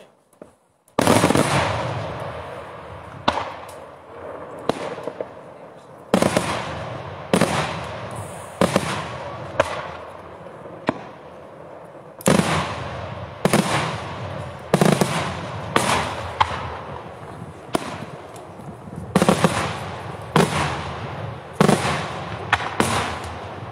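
Daytime aerial firework shells bursting overhead one after another. After about a second of quiet, sharp loud bangs come roughly every second or so, each fading off in an echo.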